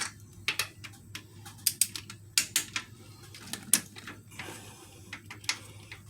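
Irregular sharp metallic clicks and clinks of a torque wrench and socket being worked over the cylinder head bolts, re-checking them at 22 foot-pounds.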